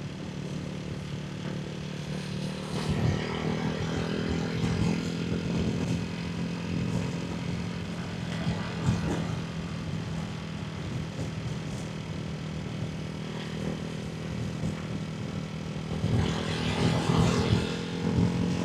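Ducati Hypermotard 698 Mono's single-cylinder engine running through a Termignoni exhaust with the baffles fitted, a steady low drone with louder, rougher surges a few seconds in and again near the end.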